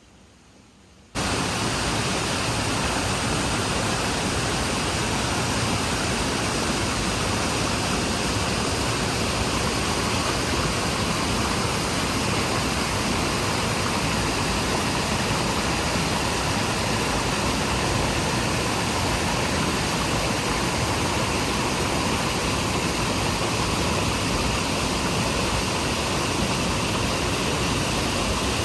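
Small waterfall on a hill stream, water rushing steadily. It cuts in suddenly about a second in, after near silence.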